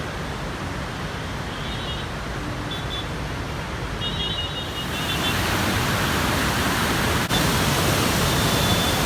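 Heavy floodwater rushing through the open gates of the Krishna barrage: a steady, loud rushing noise that grows louder and brighter about five seconds in.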